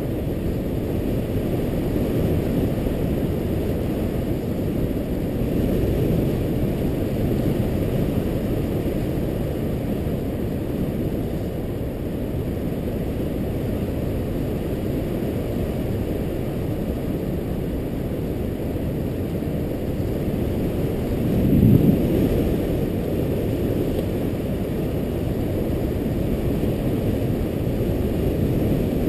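Steady wind rumble buffeting a camera microphone during a BASE jump's descent, with one brief louder gust about twenty-two seconds in.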